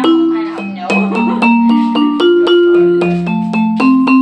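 Roland SPD-20 electronic percussion pad struck with a stick, each hit triggering a pitched, marimba-like note, about three notes a second in a short melody. This is a play test of the unit after repair of its crackling output.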